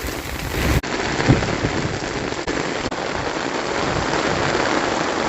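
Heavy rain falling steadily and hitting surfaces outside, a dense continuous hiss.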